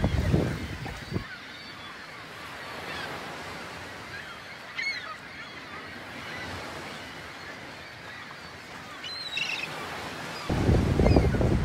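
Sea lions barking in the distance, short calls scattered over the lap of small waves. Wind buffets the microphone loudly in the first second and again from near the end.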